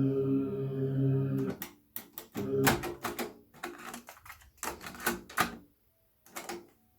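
Roland EXR-7 keyboard music played through a Grundig V2000 amplifier. A held chord cuts off about one and a half seconds in. It is followed by a series of sharp, irregular percussive hits with short gaps between them.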